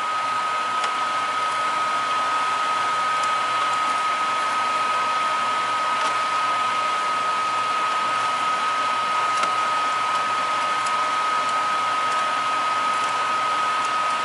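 Over-the-stove exhaust fan running steadily: an even rush of air with a steady high whine. A few faint clicks, from metal tongs against the sheet pan, sound over it.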